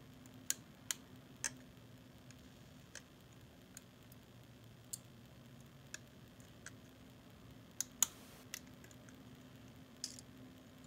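Scattered sharp clicks and snaps of plastic being broken off by hand along knife-scored lines, with a faint steady hum underneath.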